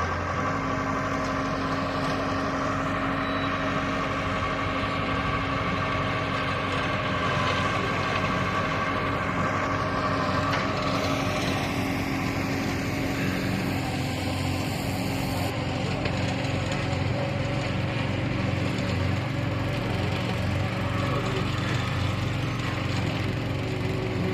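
Engine of a self-loading concrete mixer running steadily, its tone shifting slightly about halfway through.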